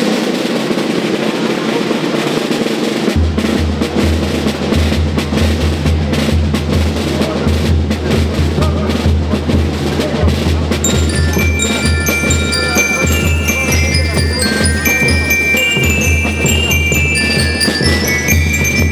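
School rhythm band playing: snare drums with a dense, rolling drum sound, heavy bass drum joining about three seconds in. From about eleven seconds in, bell lyres ring out a high melody over the drums.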